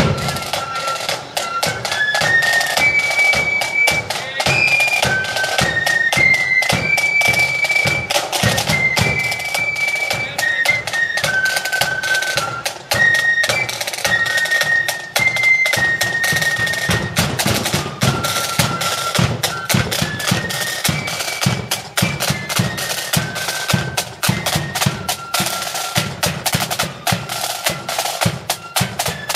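Marching flute band playing a tune on the move: many flutes carrying the melody together over rapid snare-drum playing and the steady beat of a bass drum.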